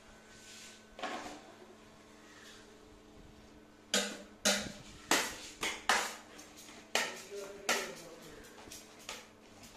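Metal palette knife scraping and tapping through whipped cream on a stainless steel worktable: a run of short, sharp scrapes and taps, under two a second, starting about four seconds in.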